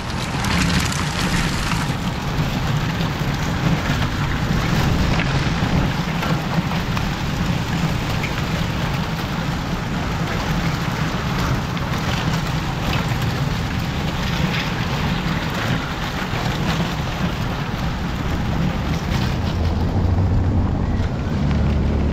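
A bunch of racing bicycles clattering over cobblestones: a dense, steady rattle of tyres and frames going by. Near the end a following car drives past with a low engine rumble.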